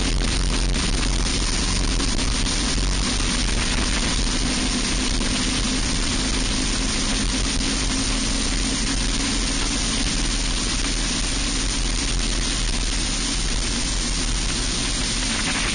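Briggs & Stratton Animal single-cylinder racing kart engine running at a steady pitch, with heavy wind rush on the onboard microphone.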